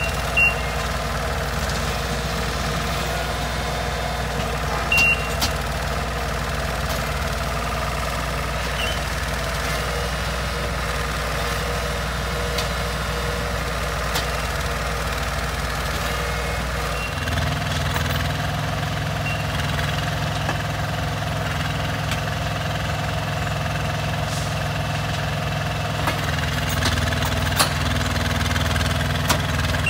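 Engine of a rail-mounted track maintenance machine running steadily, with two short beeps in the first five seconds. About seventeen seconds in, the engine note shifts to a different steady pitch.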